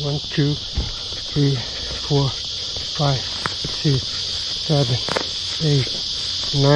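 Steady high-pitched chorus of insects, with a man's voice slowly counting aloud, one number about every second, over it.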